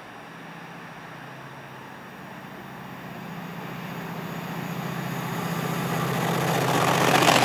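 Diesel freight locomotive approaching on the main line, its engine note growing steadily louder as it nears.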